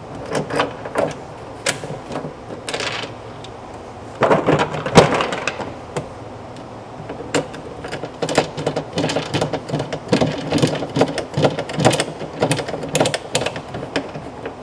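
Metallic clicking and clattering of hand tools and hardware as a fastener is put back in, with a louder clatter about four seconds in and a run of quick, uneven clicks in the second half.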